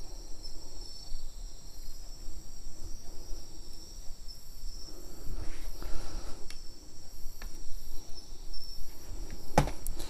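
Insects chirping steadily, high-pitched, with faint scattered knocks and a sharp click near the end.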